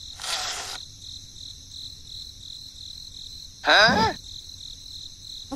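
A steady, high-pitched pulsing chirp, like an insect's, with a short noisy burst at the start and one short call rising and falling in pitch about four seconds in.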